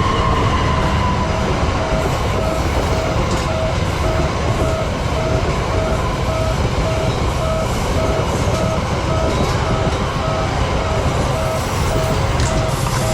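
Railway level-crossing warning siren sounding rapid, evenly repeated beeps, while a passenger train runs over the crossing with a steady low rumble.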